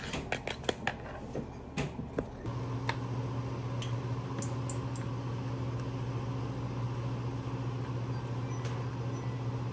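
A metal spoon clinks and scrapes against a bowl while stirring batter, in a quick run of clicks. About two and a half seconds in, a steady low mechanical hum starts, and the spoon goes on with only a few faint clicks over it.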